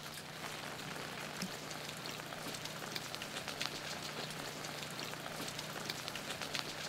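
Steady rain falling, with many small drop taps pattering through it, over a faint low steady hum.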